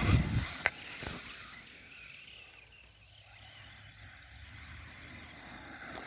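Redcat Volcano EPX Pro RC truck driving, its motor and tyres loud for the first moment and then faint and steady as it moves off, with one sharp click under a second in.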